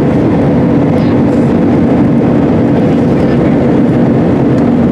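Jet engine and airflow noise inside the cabin of an Allegiant Air Airbus A320-family airliner climbing out after takeoff: a loud, steady rushing drone with a constant low hum beneath it.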